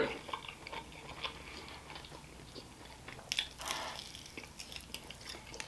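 A man biting into and chewing a fried chicken wing close to the microphone: faint wet mouth sounds and small clicks, with one louder bite about three and a half seconds in.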